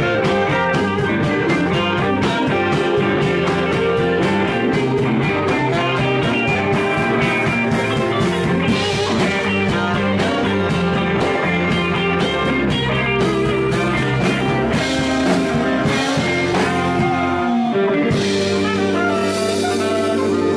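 Live blues-rock band playing the closing stretch of a song: electric guitars, drum kit and a horn section of tenor saxophone and trumpet, loud and steady.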